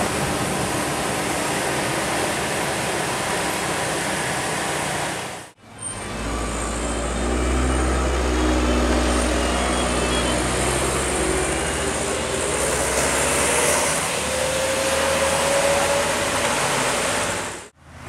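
Vehicles driving past on a winding road: first a coach's engine and tyres, then, after a sudden break about five seconds in, a minibus engine with a strong deep drone and a pitch that rises slowly near the end.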